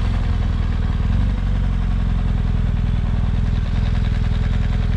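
BMW adventure motorcycle's engine running at a steady, even note as the bike is ridden slowly along a dirt track.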